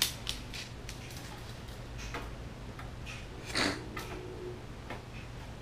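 Faint scattered clicks and ticks of a steel tape measure being handled against a car fender, over a steady low hum. A short breathy noise about three and a half seconds in is the loudest thing.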